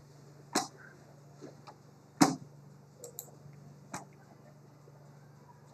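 A few separate sharp clicks, the loudest a little past two seconds in, over a steady low electrical hum.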